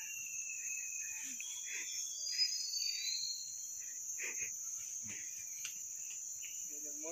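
Forest insects, crickets or cicadas, keep up a steady high-pitched drone. Over it a bird gives a long, slightly falling whistle at the start, then a few short falling whistles about two to three seconds in.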